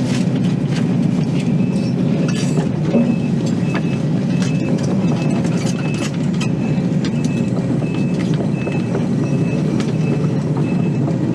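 Excavator's diesel engine and hydraulics running steadily under load as the machine swings around, with a high electronic alarm beeping about twice a second from a couple of seconds in until near the end.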